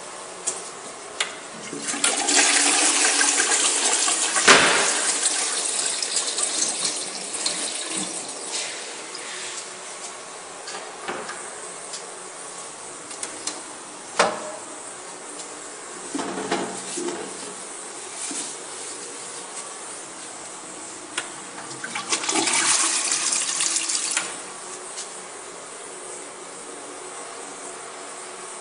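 A toilet flushing: a loud rush of water begins about two seconds in and dies away over several seconds, with a sharp click at its peak. A few more clicks follow, then a second, shorter rush of water near the end.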